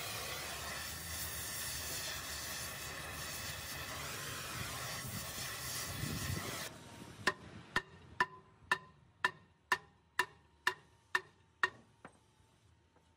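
A gas cutting torch hisses steadily at the heavy truck's rear wheel hub, then cuts off suddenly. About ten hammer blows follow, roughly two a second, each ringing off the steel hub.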